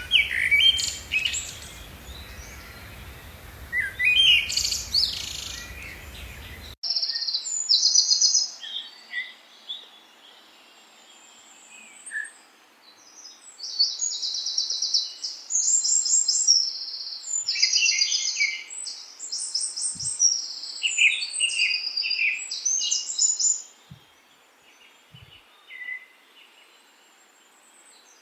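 Songbirds chirping and trilling in quick runs of high notes. A background hiss and hum drops away abruptly about seven seconds in, where two recordings are spliced together.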